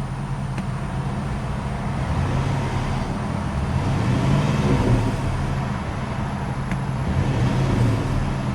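2005 Chrysler 300C's 5.7-litre Hemi V8 running, revved so that it grows louder around the middle and again near the end before settling back.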